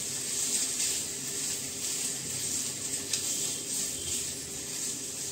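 Shredded chicken stir-frying in hot oil in a nonstick pan: a steady sizzle, with the light scrape and tap of a wooden spatula stirring it.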